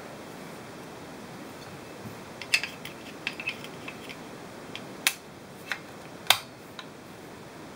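Black wall-mount bracket parts being handled and fitted together by hand: a string of short sharp clicks and clacks as the pieces knock and snap against each other, the loudest two about five and six seconds in.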